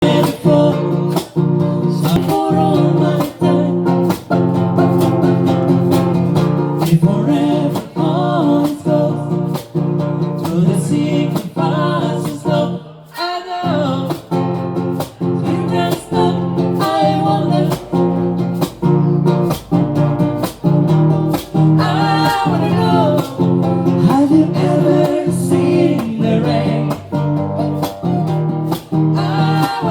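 Acoustic guitar strummed in a steady rhythm, with a singing voice over it; the playing breaks off briefly about halfway through.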